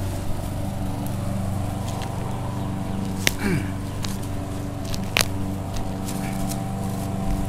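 Digging in root-filled soil with a hand digging tool, with a few sharp clicks and scrapes from the tool, over a steady low mechanical hum.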